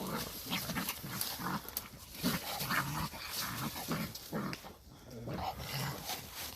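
Dogs growling and snarling as they fight a raccoon: a quick, irregular string of short, low growls.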